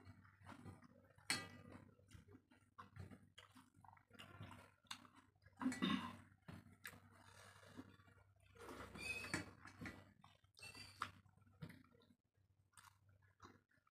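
Close-miked eating sounds: fingers squishing rice and egg curry against a steel plate, with chewing and lip smacks, as a run of soft irregular clicks and squelches; the loudest squelch comes about six seconds in.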